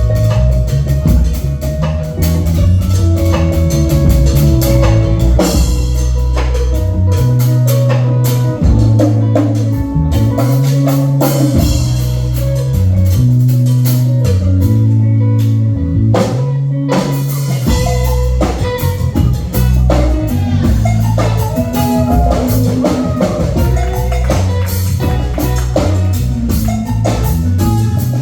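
Live rock band playing an instrumental passage on drum kit and guitar over a low, stepping bass line.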